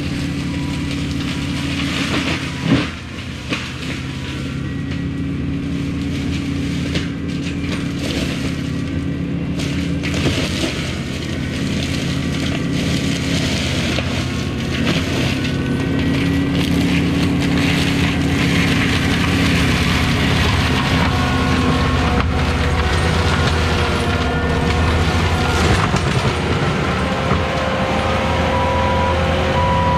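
Diesel engine of compact earthmoving equipment running steadily under working load, with two sharp clunks about three seconds in. Near the end an evenly pulsed beeping starts.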